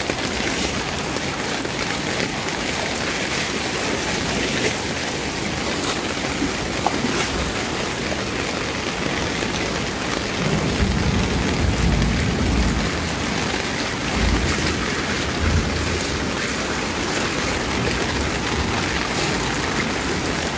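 Heavy rain falling on a flooded street, a steady hiss. About halfway through, a low rumble swells for a couple of seconds and returns briefly soon after.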